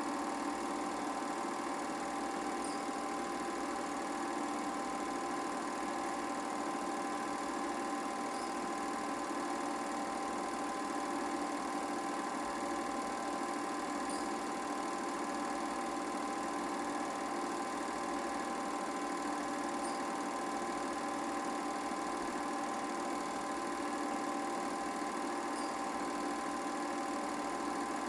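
Film projector mechanism running steadily, a constant motorised hum and whir with a faint high tick about every six seconds.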